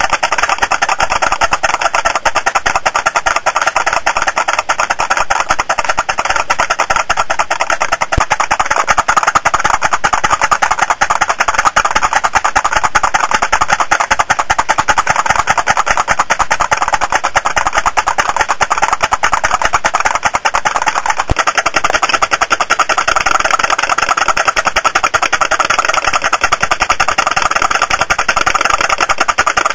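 Model putt-putt boat's pop-pop steam engine popping in a rapid, continuous rattle.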